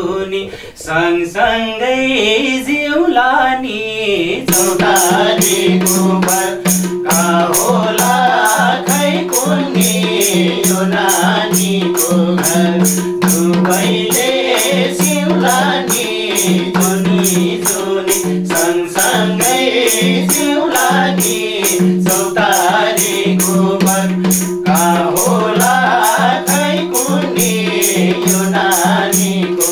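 Nepali lok dohori folk song performed live. A singer carries the tune alone at first, then about four seconds in a madal drum beat and a steady held drone come in under the singing, which goes on over the accompaniment.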